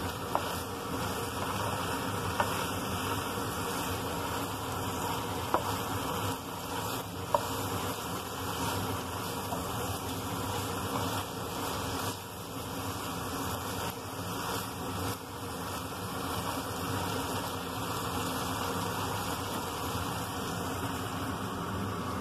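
A steady buzzing hum over a hiss, with a few sharp clicks of a wooden spatula striking the frying pan as the squid-ink stir-fry is stirred, four of them in the first eight seconds.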